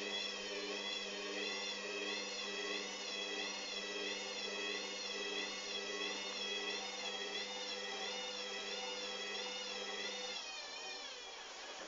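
Hoover Dynamic washing machine spinning its drum, the motor giving a steady hum under a high whine that wavers up and down in a regular rhythm; the uploader calls this spin dangerously unbalanced. A little before the end the hum drops out and the sound eases off.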